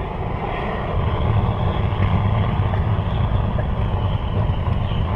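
Butane blow torch burning steadily, a continuous rushing noise with a low rumble, played over herring to cook it.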